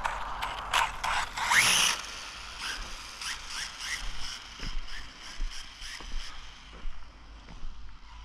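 1/14-scale RC car's electric motor whining up in pitch as it accelerates, with sharp clicks and scrapes, then a fainter whine that slowly dies away as the car runs off. The car is running slow on a 2S battery for reasons not yet known.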